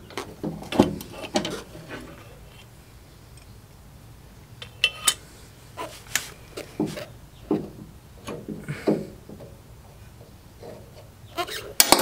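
Irregular metal clicks and clunks as a VW Beetle pedal assembly is handled and set into place on the car's floor pan.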